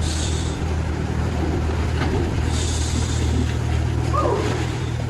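A vehicle engine running steadily, with two short bursts of hissing, at the start and about three seconds in. A brief wavering squeal comes about four seconds in.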